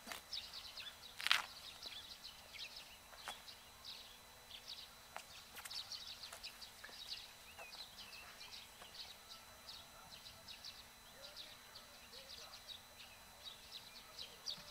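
Small birds chirping in quick, irregular calls, with a few scattered sharp clicks and knocks, the loudest about a second in.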